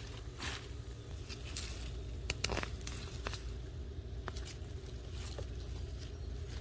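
Soil being dug through while harvesting potatoes: scattered short scrapes, crunches and clicks at irregular moments, over a steady low rumble.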